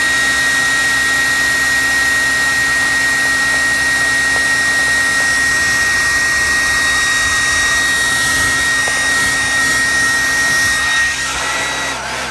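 Handheld hot-air dryer running steadily to heat-set freshly airbrushed paint on a crankbait: a steady high whine over rushing air, winding down near the end.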